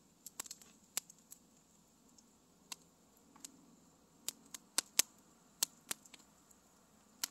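Wood campfire crackling: a dozen or so sharp pops and snaps at irregular intervals over a faint background hiss, one of the sharpest near the end.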